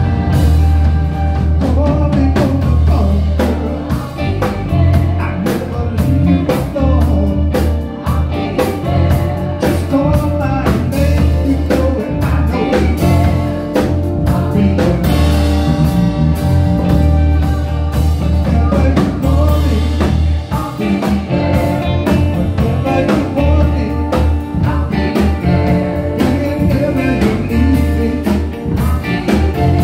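Live band playing: a woman singing lead over electric guitar, bass guitar and a drum kit with a steady beat.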